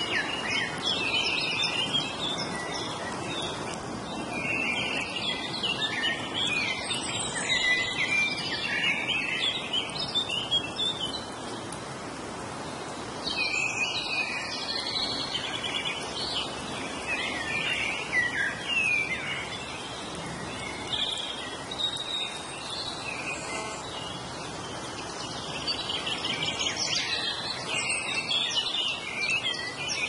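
Several songbirds singing and chirping at once over a steady rushing background. The birdsong breaks off briefly about twelve seconds in, is sparser for a while after that, and thickens again near the end.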